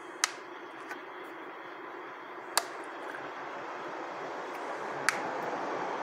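Thin plastic oil bottle, upturned on a tube into a DSG gearbox breather, giving three sharp clicks about two and a half seconds apart as the transmission oil drains from it and air burps back up through it, over a steady hiss.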